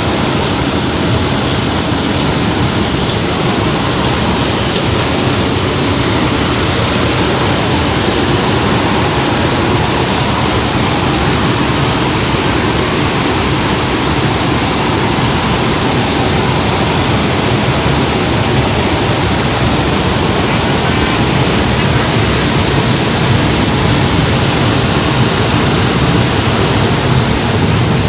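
Steady, loud cabin noise inside a C-130 Hercules transport aircraft in flight: the drone of its four turboprop engines mixed with airflow rush, with a few faint high steady tones in the first several seconds.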